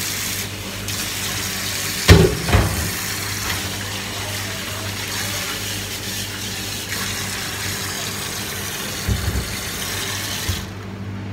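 Water running steadily from a tap, with a couple of knocks about two seconds in and another near the end, shutting off shortly before the end; a steady low hum underneath.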